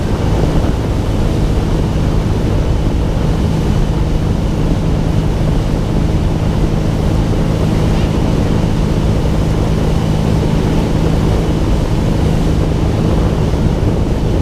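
Tow boat's engine running at a steady speed, a constant low hum under the rush of the churning wake and wind buffeting the microphone.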